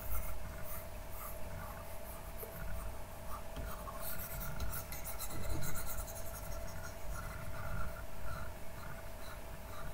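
A stylus scratching over a drawing-tablet surface in short, irregular strokes, blending paint edges in a digital painting, over a steady faint hum.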